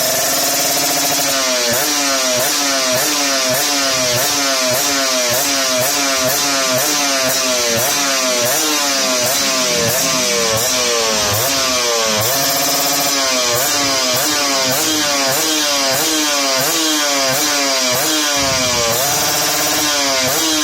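Two-stroke motorcycle engine through a Creampie ZZ1 racing exhaust, revved in quick repeated throttle blips. Its pitch rises and drops about twice a second, with a brief lull about twelve seconds in and another near the end.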